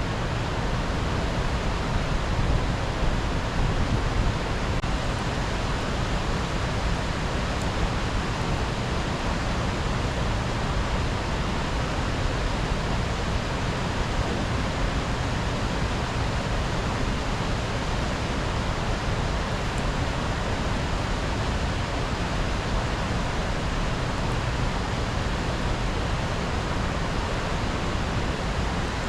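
Steady rushing of river water flowing through a current, an unbroken noise with a strong low rumble.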